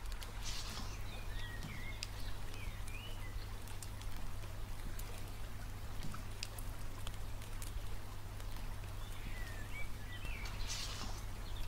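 Quiet outdoor ambience: a faint steady hiss with scattered drip-like clicks, and two clusters of short chirping animal calls, one about a second in and one near the end.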